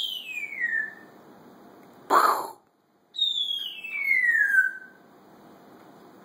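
Timneh African grey parrot whistling two long falling notes, each sliding smoothly down in pitch, the second one longer, with a short harsh sound between them.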